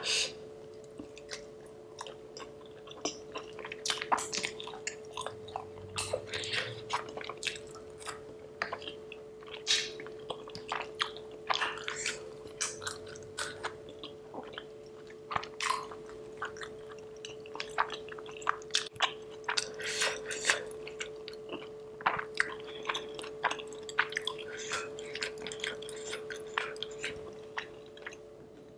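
Close-miked chewing and wet mouth smacks of someone eating soft Indian food such as dosa and paneer curry. Short sticky clicks and smacks come every fraction of a second, over a steady faint hum.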